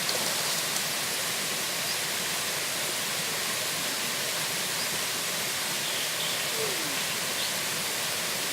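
Steady rushing of a waterfall and its stream, an even hiss of falling water, with a few faint short chirps on top.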